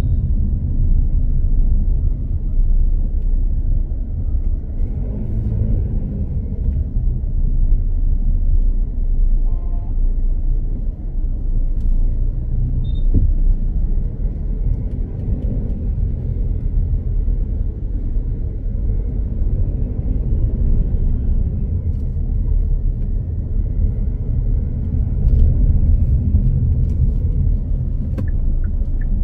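Steady low rumble of a car driving slowly along a town street: engine and tyre noise, with faint sounds of passing traffic rising and falling every few seconds.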